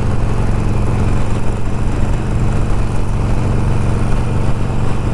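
Cruiser motorcycle engine running steadily at cruising speed, heard from the rider's seat with road and wind rush.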